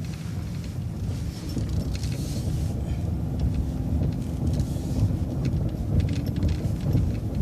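City transit bus running at low speed, heard from inside: a steady low engine and road rumble, with a faint whine partway through.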